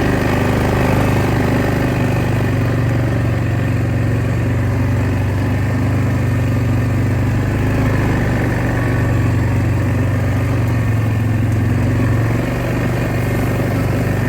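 Engine of a small farm vehicle running steadily at an even pace, a constant low hum with no revving.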